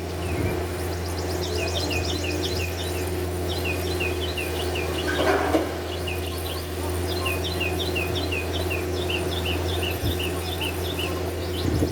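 A songbird singing phrases of quick, repeated down-slurred chirps over a steady low drone. A short scraping sound comes about five seconds in.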